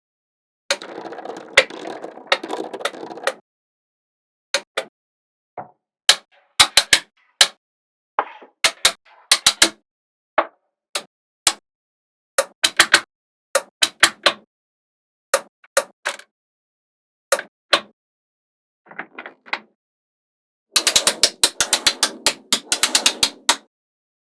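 Small magnetic balls clicking as they snap onto each other one or a few at a time, with two stretches of fast rattling clatter where many balls click together at once, about a second in and near the end.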